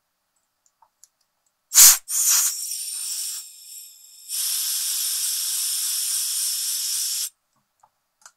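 An aerosol can spraying. A sharp loud first blast is followed by about a second and a half of uneven hissing. After a short pause comes a steady hiss of about three seconds that cuts off suddenly.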